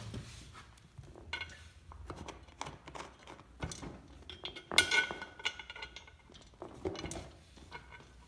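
Small metal clinks, taps and scrapes of a bolt being fitted into the backrest's metal tube, with a louder ringing clink of metal on metal about five seconds in.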